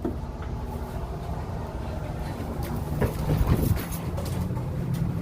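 A steady low engine-like drone that grows slightly louder.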